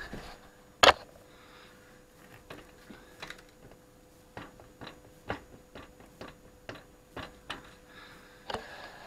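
A sharp click about a second in, then a string of light, irregular clicks and taps, with a faint steady hum underneath.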